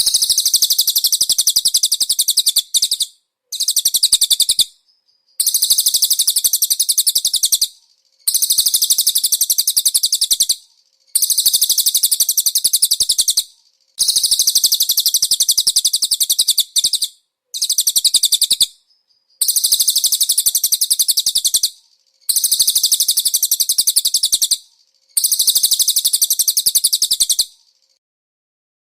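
Cililin songbird singing a very rapid, high-pitched trill in repeated phrases of two to three seconds, about ten in a row with short pauses between them: a tutor song for training caged konin birds.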